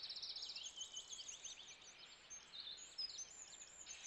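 Several small birds chirping and trilling together, with quick high repeated notes and short rising and falling sweeps overlapping throughout.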